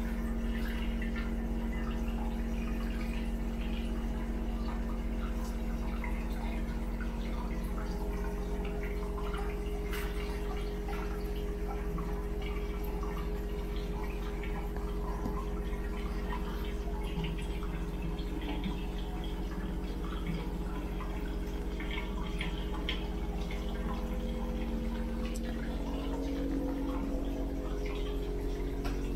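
Hot spring water running from a wooden spout into a ceramic bathtub, a steady trickle and splash with many small drips, over a constant low hum.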